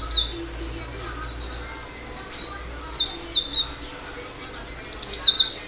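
Cinereous tit (gelatik batu) singing in short runs of sharp, high whistled notes: a brief phrase at the start, another about three seconds in, and a fast run near the end.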